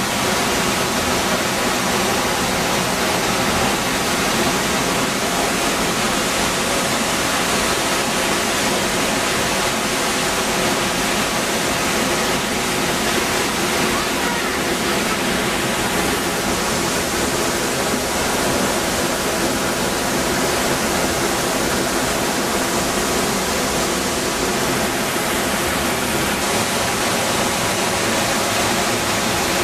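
Ponytail Falls, a waterfall in full spring flow, plunging into its pool close by: a loud, steady rush of falling water that never lets up.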